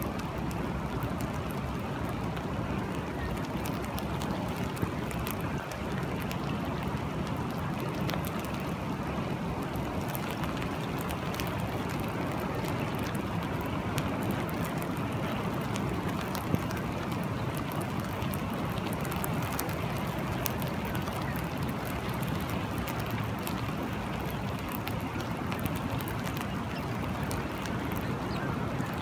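Steady rain falling on water and wet sand, with many separate drop ticks over a steady low rush.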